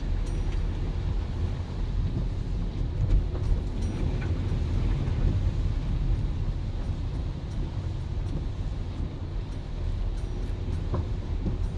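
Car driving slowly along a flooded street, heard from inside the cabin: a steady low rumble of engine and tyres on the wet, water-covered road.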